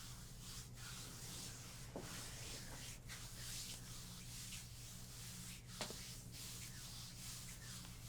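Hands rubbing and kneading over bare skin during a full-body massage: a faint, uneven swishing friction, with a few small clicks.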